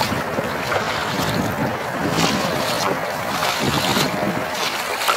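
Rubber boots splashing and sloshing through flooded grass at a walking pace, a splash with each step, with wind buffeting the microphone.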